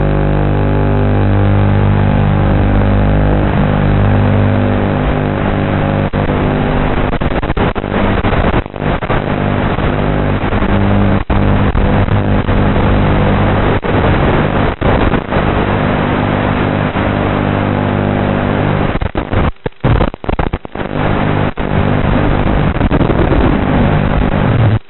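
Brushless motors and propellers of an FPV racing quadcopter, heard through the onboard camera's microphone, their pitch shifting as the throttle changes. The sound drops sharply several times near the end.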